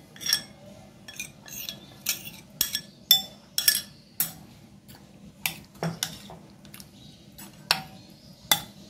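Metal spoon clinking against glass bowls as yogurt marinade is scraped in and stirred through boneless chicken pieces: an irregular string of sharp clinks, a few each second.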